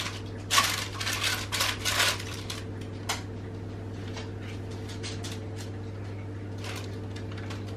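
Baking paper crinkling and rustling as it is pressed by hand into a round cake tin, for about two seconds, then a few light clicks. A steady low hum runs underneath.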